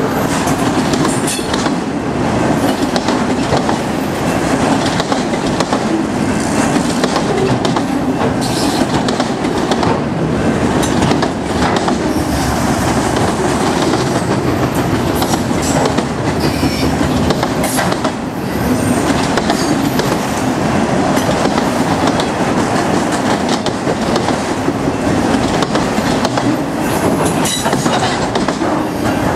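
A freight train's enclosed autorack cars rolling past close by: a steady, loud rumble of steel wheels on rail, with clicks and rattles as the wheels pass over rail joints.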